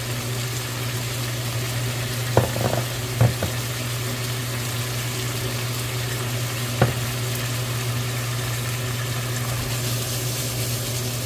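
Beef cubes and bell peppers sizzling in sauce in a frying pan, a steady hiss with a low hum underneath. A few short sharp knocks, about two and a half, three and seven seconds in.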